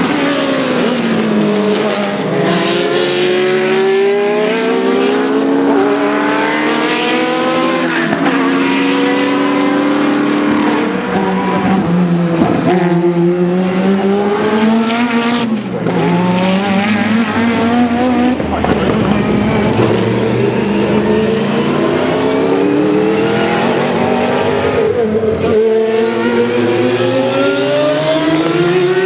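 Group C sports-prototype race car engines at full throttle, the notes climbing through the revs, dropping at each gear change and climbing again, with several cars overlapping and swelling as they pass.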